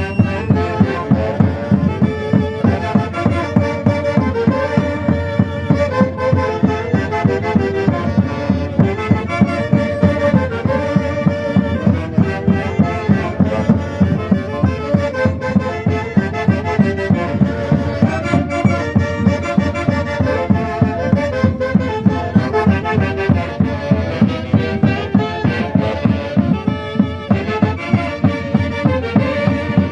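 Instrumental Andean fiesta music in the Santiago style: reed and brass instruments play the melody in several voices over a steady, quick drum beat.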